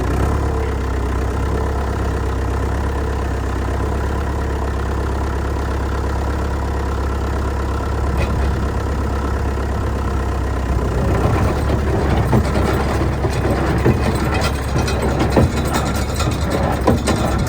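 A tractor engine runs steadily driving a John Deere 336 square baler. From about eleven seconds in, a fast, irregular clatter of metal knocks and clanks from the baler's moving parts joins the engine.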